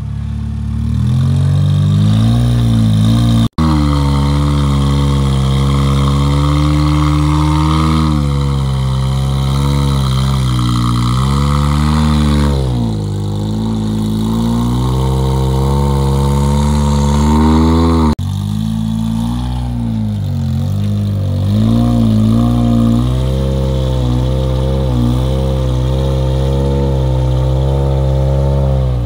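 Rock buggy's engine revving up and down under throttle as the buggy crawls up a rock ledge, its pitch rising and falling again and again. The sound drops out for an instant about three and a half seconds in.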